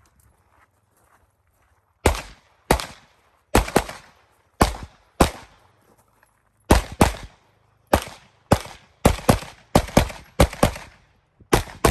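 9mm competition pistol firing fast strings of shots, mostly pairs and quick groups with short pauses between, about twenty shots in all, starting about two seconds in.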